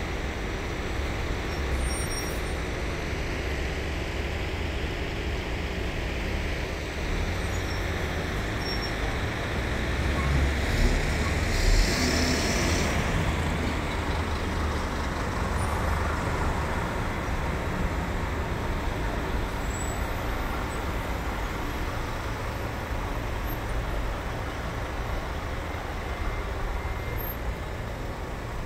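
Road traffic at a busy intersection: a steady rumble of engines and tyres. It swells about halfway through as a city bus passes close by, with a short hiss near its loudest point.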